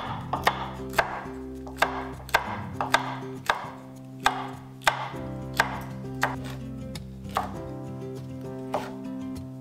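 Chef's knife slicing chili peppers into rings on a wooden cutting board: a series of sharp, irregular chops on the board, roughly one to two a second.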